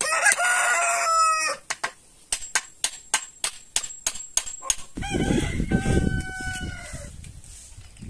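A rooster crows, one call about a second and a half long that falls at the end. Then a hammer drives a nail into wood, about a dozen quick taps at four or five a second. The rooster crows again over a low rumble.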